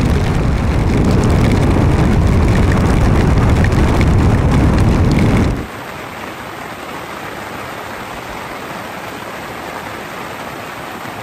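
Loud rumbling noise of a motorcycle being ridden through heavy rain. About five and a half seconds in it cuts off suddenly to a fainter, steady hiss of rain falling.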